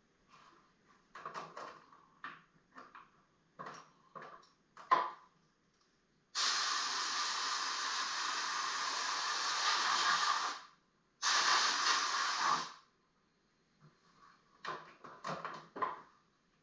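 Hand-sanding strokes scratching on old wooden mantle trim, then a compressed-air blow gun blasting the dust off it in two long hisses, the first about four seconds, the second about a second and a half; a few more sanding strokes follow near the end.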